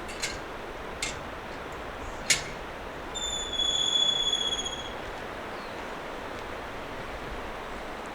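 Steady rush of the River Tees, broken by a few sharp clicks and, about three seconds in, a high-pitched squeal that holds for nearly two seconds.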